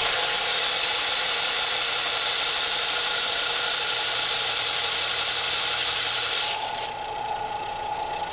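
Central Machinery 4x36 belt and disc sander running with a workpiece held against the abrasive: a steady, loud grinding hiss over the motor's whine, with no sign of the motor bogging. About six and a half seconds in, the hiss stops and the sander runs on free with just its steady whine.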